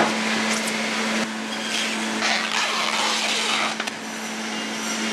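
Processing-plant machinery running with a steady hum under loud, even mechanical noise and some brief clatter.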